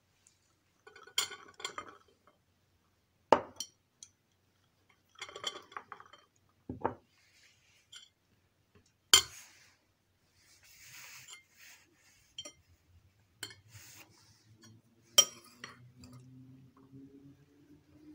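Slotted metal spoon clinking and scraping against a ceramic plate while mixing diced boiled vegetables: irregular sharp clinks with short scrapes in between.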